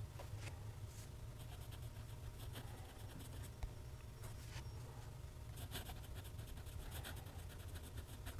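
Steel nib of a TWSBI ECO fountain pen writing cursive on Clairefontaine paper: faint runs of fine scratches with short pauses between words. A steady low hum lies underneath.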